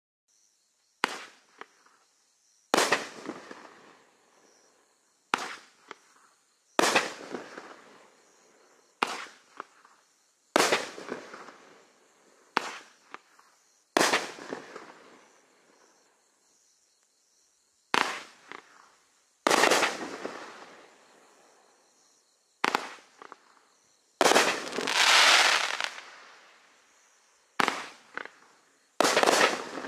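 Raccoon Fireworks 'Meteor Shower' consumer cake firing shot after shot: about fifteen sharp bangs at uneven spacing, each dying away over a second or two. There is a quiet gap of a few seconds about halfway, and one longer, louder burst about four-fifths through.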